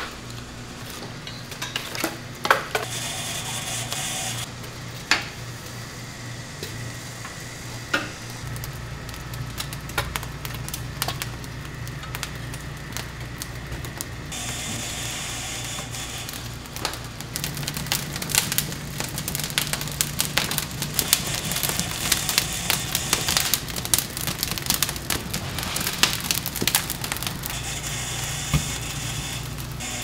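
Chicken sizzling and crackling on a wood-fired grill over a low steady hum. The crackling grows denser about halfway through, and a few sharp knocks come in the first third.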